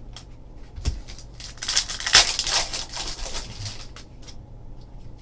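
Trading cards and foil pack wrappers being handled: a rustling, crinkling swish about two seconds in, with a few light taps around it.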